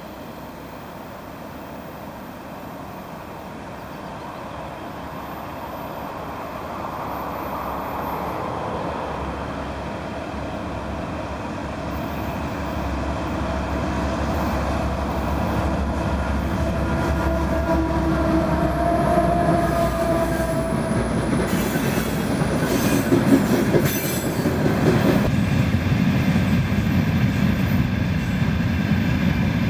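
Diesel-hauled freight train approaching: the locomotive's engine drone grows steadily louder, with wheel and rail noise building as it nears. Near the end the sound changes abruptly to another freight train running past.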